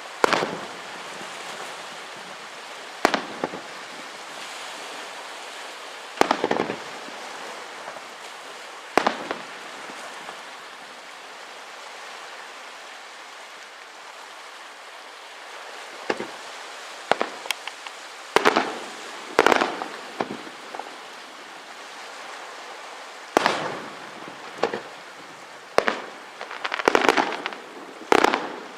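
Aerial fireworks shells bursting with sharp bangs every few seconds, some in quick clusters, over a steady hiss. There is a lull of several seconds with only the hiss before the bangs resume, thicker near the end.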